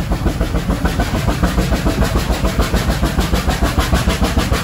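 Vale of Rheidol Railway's narrow-gauge 2-6-2 tank steam locomotives No 7 and No 8 climbing, heard from a carriage behind: a rapid, even beat of exhaust chuffs over a steady rumble of wheels on track.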